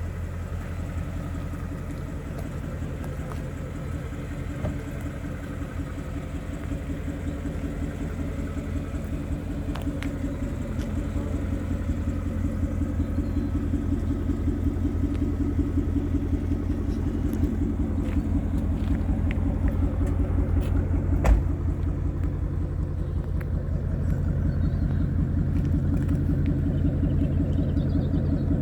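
Ford Mustang GT's 5.0-litre V8 idling with a steady low rumble that grows gradually louder. A single sharp knock comes about twenty-one seconds in.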